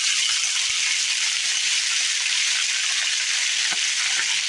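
Thin-sliced raw potatoes frying in hot bacon grease in a skillet: a steady high sizzling hiss with a few faint clicks.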